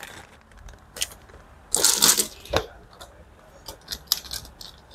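Small wooden letter discs spilled onto a table with a short rattle about two seconds in, then light clicks as they knock against each other while being handled.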